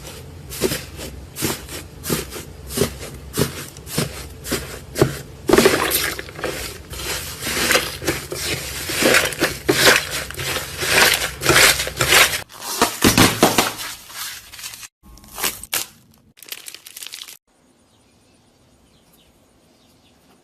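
Slime being squeezed and pressed, giving a dense, irregular run of crackling and crunching pops that thin out after about twelve seconds and stop about seventeen seconds in.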